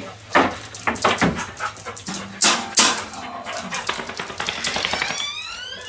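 A dog whining in high, rising cries, clearest near the end, among several sharp knocks and clicks.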